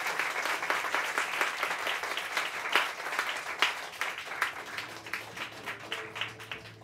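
Audience applauding, the clapping thinning out and fading away; faint music with held notes comes in near the end.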